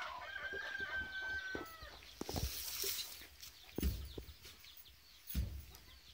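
A rooster crowing once: a long, held call that drops in pitch at its end. It is followed by a few dull thumps.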